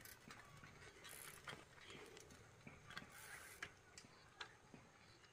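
Faint ticking of bicycle freewheels as two bicycles are wheeled off and then ridden away, with light scattered clicks and rattles.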